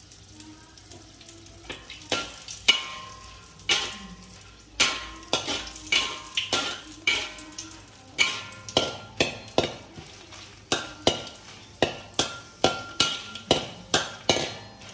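Steel spatula scraping and clinking against a metal wok as dried red chillies are stirred in hot oil, about twice a second and faster in the second half, over a faint sizzle. The chillies are being fried until they turn reddish and crisp enough to pound.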